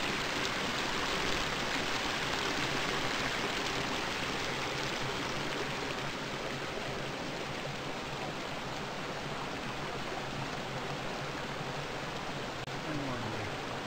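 Steady rush of a small rocky forest creek running over stones.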